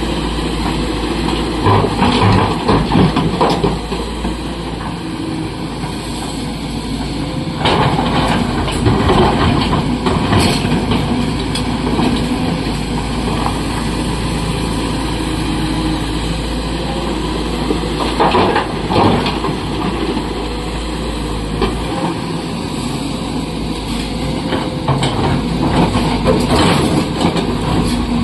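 SANY SY225 hydraulic excavator's diesel engine running steadily under load, with four loud bursts of clattering rock as the bucket tips blasted stone into a steel dump-truck body and scrapes into the rock pile.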